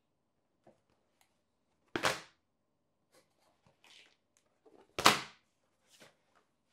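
Stiff Horween shell cordovan leather shells being laid down onto a stack: two sharp slaps about three seconds apart, with softer rustles and slides of the leather in between.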